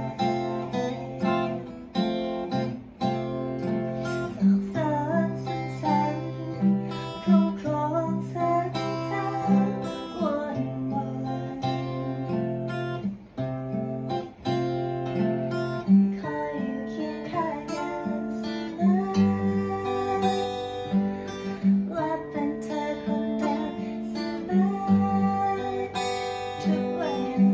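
Acoustic guitar playing a song, strummed and picked, with steady bass notes under the chords.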